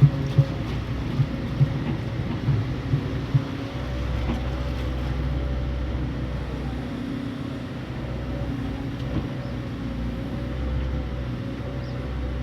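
Excavator engine running steadily, with a series of short knocks during the first few seconds.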